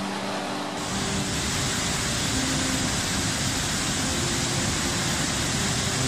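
Steady roar of rushing, churning water. It grows fuller and louder a little under a second in, then holds even.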